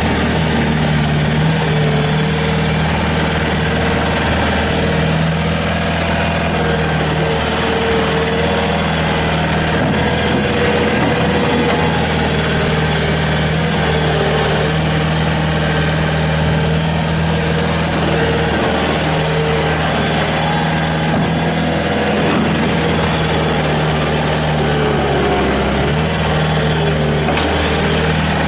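Kubota turbo diesel engine of a Bobcat S250 skid steer loader running steadily, its speed dipping slightly now and then.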